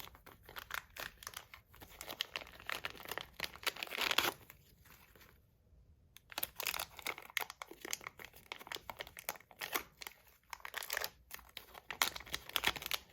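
Packaging wrapping being crinkled and torn open by hand, in irregular bursts of crackling, briefly pausing about five seconds in.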